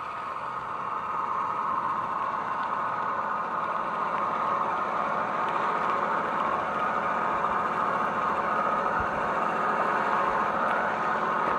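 G-scale model diesel locomotive running along garden track, a steady running noise that grows louder over the first two seconds as it approaches, then holds steady.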